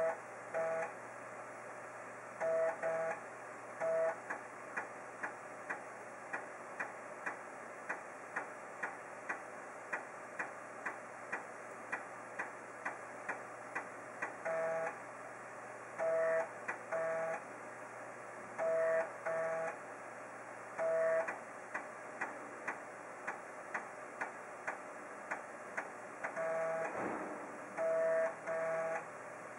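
3.5-inch 1.44 MB floppy disk drive reading and writing during a file copy. The motor hums steadily, the head ticks about twice a second as it steps from track to track, and short buzzing bursts come at irregular intervals as it seeks across several tracks at once.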